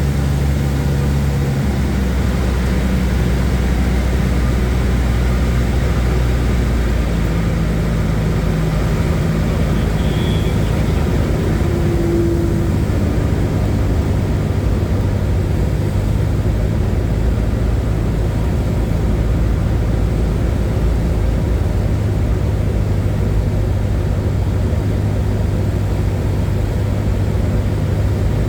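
Light airplane's piston engine and propeller running steadily, heard from inside the cabin. The low hum shifts pitch slightly about a second and a half in and again around seven seconds.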